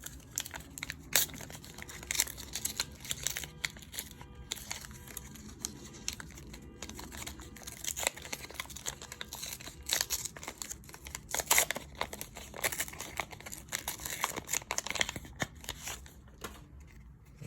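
A Pokémon booster pack's wrapper being torn open and crinkled by hand, with irregular crackles throughout.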